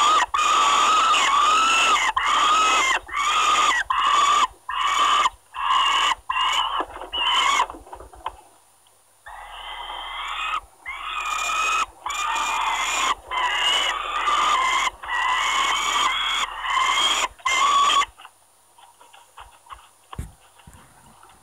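Young peregrine falcons screaming in harsh, repeated calls, about two a second, as they fight over food in the nest. The calls break off briefly partway through and stop near the end, leaving faint scratching in the nest.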